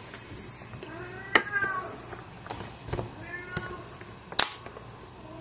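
A cat meowing faintly two or three times, each call rising and falling in pitch, with a few sharp clicks in between, the loudest about four seconds in.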